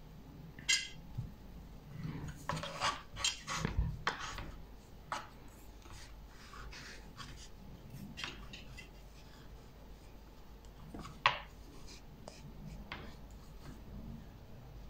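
Metal table knife scraping and tapping on a wooden cutting board as soft cookie dough is cut and lifted. It comes in scattered short strokes, bunched together a few seconds in, with one sharper click past the middle.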